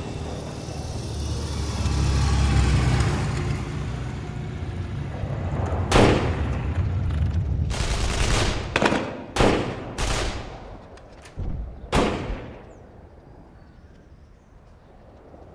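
A low rumble swelling in the first few seconds, then about eight gunshots over the next six seconds, some single and some in a quick cluster, each ringing out with an echo.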